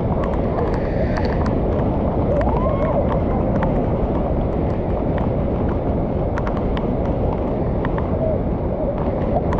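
Muddy floodwater pouring over a low weir and rushing past in a steady, loud torrent, with scattered sharp ticks.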